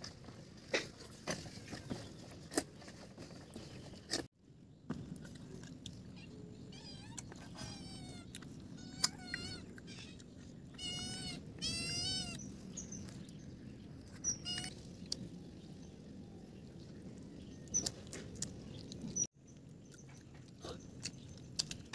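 Eating with the fingers: scattered short smacks and clicks of chewing and of picking fried fish and rice off a banana leaf. Around the middle, an animal gives a run of wavering, pitched calls for several seconds.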